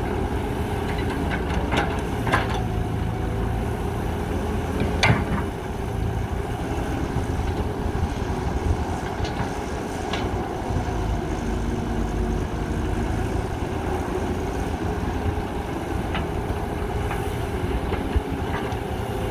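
A Cat 312B hydraulic excavator's diesel engine runs steadily as it digs and loads a dump truck, with a few short sharp knocks from the bucket and soil.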